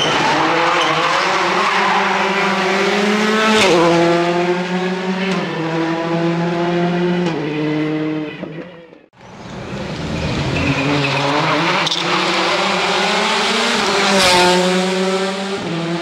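Rally car engines at high revs, each held note stepping to a new pitch several times as the drivers change gear, with a sharp crack now and then. The sound cuts off about nine seconds in and another rally car's engine builds up and passes.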